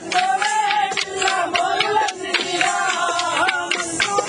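Folk singing over sharp, rapid, regular clacks of wooden sticks struck together in a stick dance.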